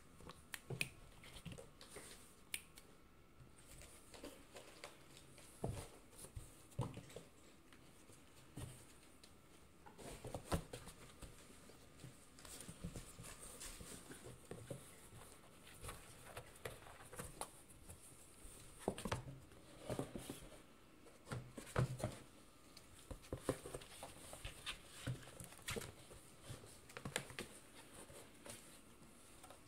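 Cats playing in and against a cardboard box: irregular light taps, scuffs and soft thumps on the cardboard, in uneven clusters with short pauses.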